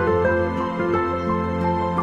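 Background music: gentle melodic notes over a sustained low note.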